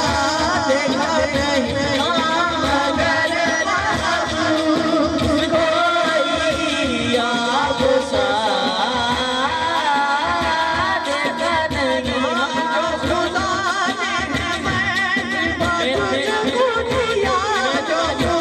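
Devotional Sufi singing: an ornamented, wavering solo voice over a steady drum beat.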